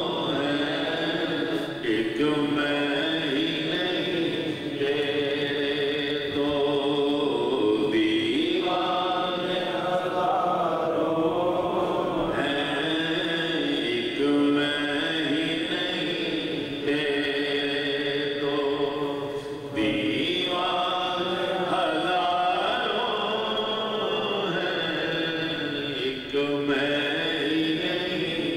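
Unaccompanied male devotional chanting in long, drawn-out phrases of a few seconds each, with notes held between short breaks.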